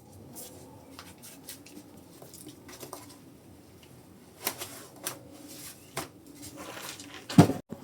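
Scattered light clicks and small handling noises, with a louder knock a little before the end.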